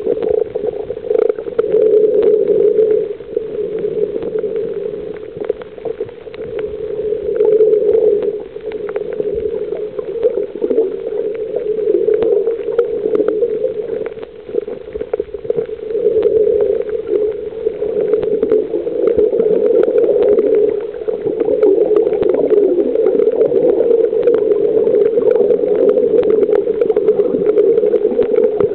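Muffled underwater sound picked up by a snorkeler's camera: a steady rush of water with scattered small clicks and crackles, swelling and fading every few seconds.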